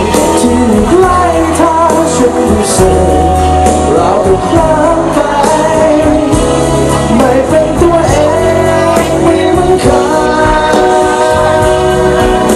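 A male singer singing a Thai pop song live into a handheld microphone over loud backing music with a steady bass line.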